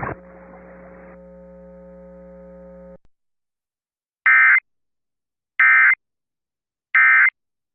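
Three short, loud Emergency Alert System digital data bursts, evenly spaced about 1.3 seconds apart: the SAME end-of-message code that closes an alert broadcast. Before them a faint steady radio hum runs and cuts off about three seconds in.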